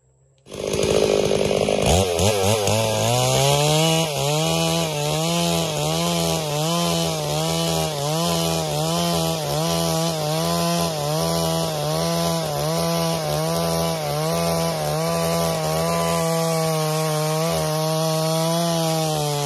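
Stihl MS 382 two-stroke chainsaw coming in suddenly about half a second in and climbing to full revs, then running under load as it rips lengthwise along a board. Its pitch dips and recovers about once a second as the saw is worked through the cut.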